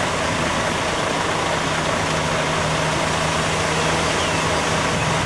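Concrete mixer truck's diesel engine running steadily with a constant low hum, driving the turning drum as it discharges concrete down the chute.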